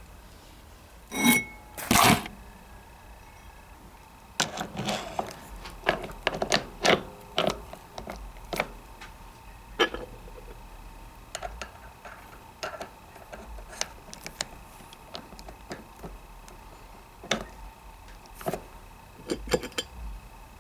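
Irregular clicks and clacks of winch gears being fitted back into the winch's gear housing by hand, metal parts knocking together, loudest in the first half.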